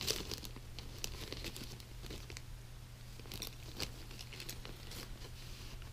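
Faint crinkling and rustling of plastic parts bags being handled, with scattered light clicks, over a steady low hum.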